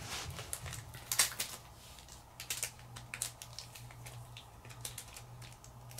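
Pokémon trading cards being flipped through by hand: scattered, irregular light clicks and flicks of card sliding on card, over a faint steady low hum.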